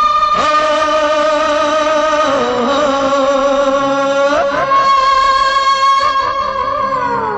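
Background music of long, held melodic notes that slide to a new pitch every two seconds or so.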